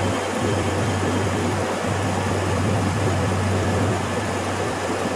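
Semi-hermetic refrigeration compressor and condenser fan of a walk-in freezer condensing unit running steadily with a constant low hum. The unit is in pump-down but is not pulling down and shutting off, which the technician suspects means compressor valve problems.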